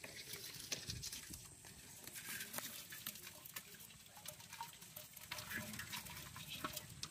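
Irregular light pattering and ticking as a live catch of small fish, shrimp and frogs is shaken from a trap net into a metal pot, the animals flicking against the pot and the net.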